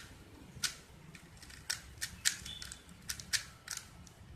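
Plastic Rubik's Cube layers being turned by hand, a run of sharp clicks at irregular spacing as the last moves of the solve are made.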